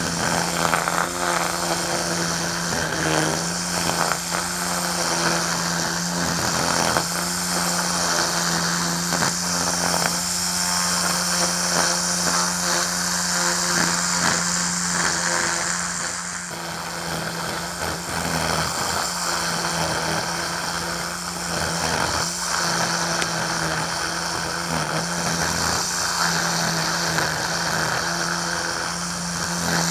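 Ryobi 40V battery string trimmer running at full speed, its nylon line whipping through tall centipede grass with a steady electric-motor whine and a high hiss. The whine dips briefly in pitch now and then as the line bites into thicker grass.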